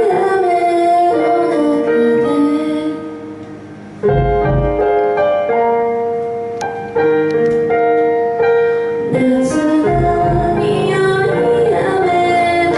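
A woman singing a slow Japanese pop ballad live into a microphone over keyboard backing. In the middle she stops singing while the backing holds one long note, then the band comes back in with a low thump and she resumes.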